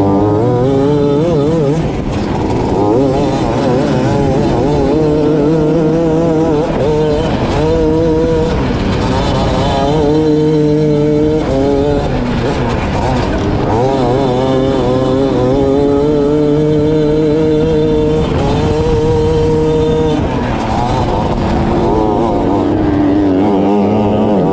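Outlaw 250 dirt kart engine, heard from on board, revving up on each straight and falling back as the throttle is lifted for the corners, several times over, with wind and dirt rumble underneath.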